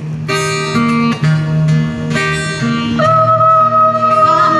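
Acoustic guitar ensemble playing: plucked chords over a moving bass line, with a long held melody note coming in about three seconds in.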